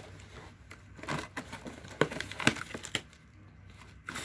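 Packaging being handled: crinkling and rustling with scattered light taps and clicks, dying down near the end.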